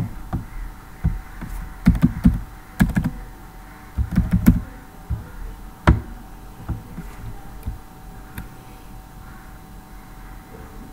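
Computer keyboard typing and mouse clicks: a few short runs of key taps in the first half, then a single sharp click about six seconds in and a few light clicks after, over a faint steady hum.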